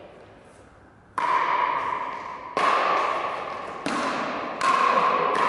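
Pickleball paddles hitting the hard plastic ball in a rally: four sharp pocks roughly a second apart, starting about a second in, each with a ringing echo in a large hall.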